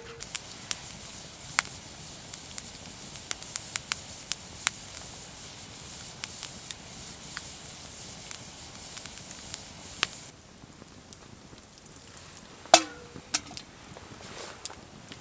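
Wood campfire crackling, with many sharp pops and snaps over a steady hiss. The hiss thins out about ten seconds in, and a single louder crack comes near the end.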